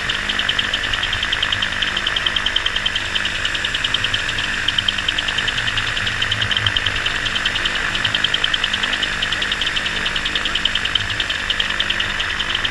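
Flexwing microlight trike's engine running steadily at low power on the ground, with an even pulsing beat.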